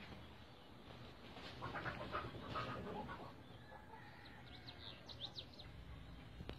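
Faint bird calls: a burst of busy calls about two seconds in, then a few short, high chirps near the end.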